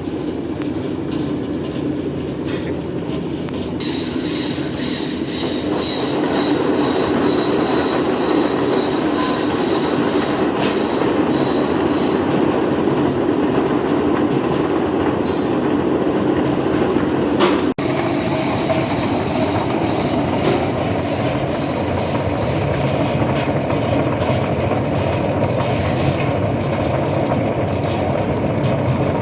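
Shallot washing and peeling machine running steadily: a continuous loud mechanical noise, broken once for an instant partway through.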